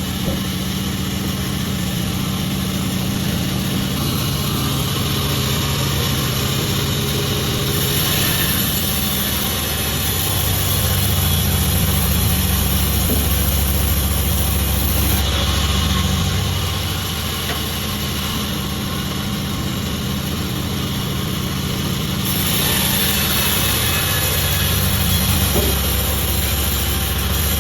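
Sawmill machinery running steadily while sawing jackfruit wood, the sound growing louder and hissier as the saw cuts, once from about eight to fifteen seconds in and again from about twenty-two seconds in.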